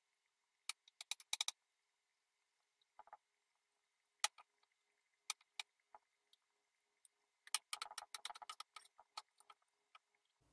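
Chef's knife chopping red onion on a wooden cutting board: scattered sharp taps of the blade on the board with quiet gaps between, then a quicker run of chops about three-quarters of the way in.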